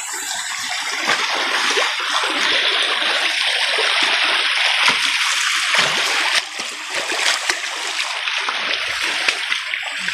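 Water splashing and rushing in a shallow, rocky stream as people wade through it. The sound is a steady, dense rush with short splashes mixed in, and it eases a little after about six seconds.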